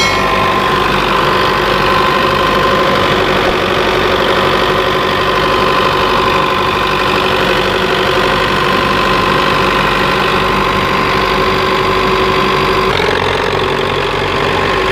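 Belarus 510 tractor's four-cylinder diesel engine running steadily under load while it drives a wheat thresher, mixed with the thresher's running and a steady high whine.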